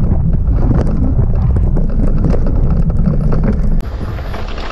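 Wind buffeting the microphone, with a rapid clatter of knocks and rattles as a Hiboy P6 fat-tire e-bike is ridden over rough off-road ground. The loud rumble drops off sharply near the end.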